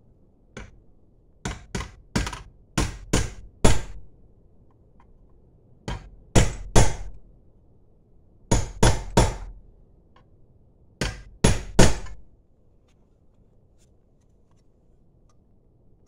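Hammer tapping on a small steel cabinet hinge to tighten it, because it swings too floppy: sharp metallic strikes with a short ring, about fifteen in four bursts of three to six, stopping a few seconds before the end.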